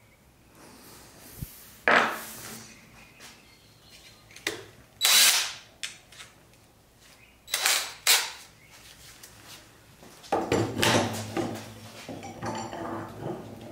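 DeWalt cordless drill spun in several short bursts while an abrasive wheel on a mandrel is fitted in its chuck, then run for a few seconds near the end with the wheel spinning.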